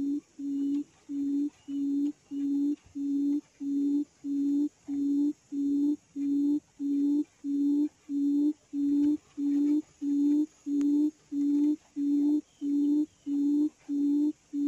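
Quail lure call played through a speaker: an even series of short, low hoots at one steady pitch, about two a second.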